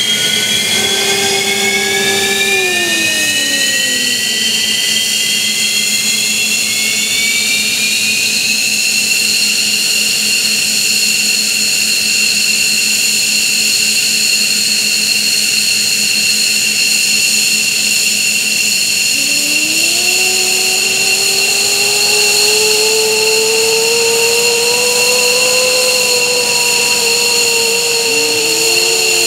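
F-15J Eagle's Pratt & Whitney F100 turbofan engines spooling up during start-up. A loud high-pitched jet whine rises in pitch over the first several seconds, then holds steady. About twenty seconds in, a lower set of tones climbs again as spool-up continues, and another rises near the end.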